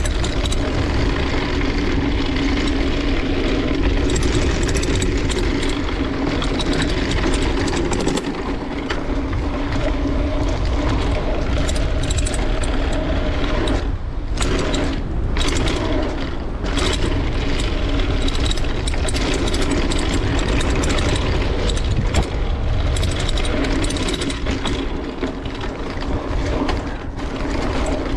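Wind rushing over a GoPro's microphone on a fast mountain-bike descent, mixed with the hardtail's tyres running on dirt and the bike rattling over bumps. It stays loud and steady, with a few short dips about halfway through.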